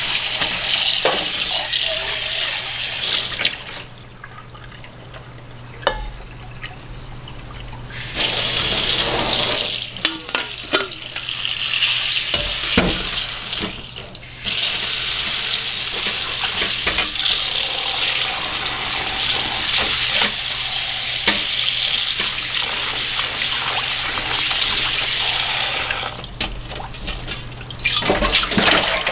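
Water running from a tap into a sink, shut off for a few seconds near the start and briefly twice more, with scattered knocks and clinks of things being handled under it.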